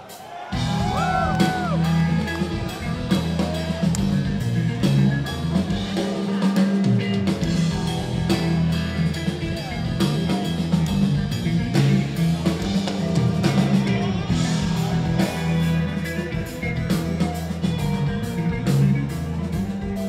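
Progressive metal band playing live through a PA, with distorted electric guitars, bass and drum kit. The full band comes back in about half a second in, after a brief drop.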